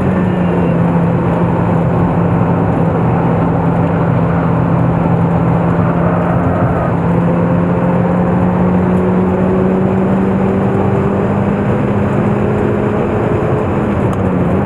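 Mazda NC Roadster's 2.0-litre inline-four engine running hard at high revs on a circuit lap, heard from inside the cabin. The engine note holds nearly steady, stepping up slightly about halfway through and dipping briefly near the end, over a constant rush of noise.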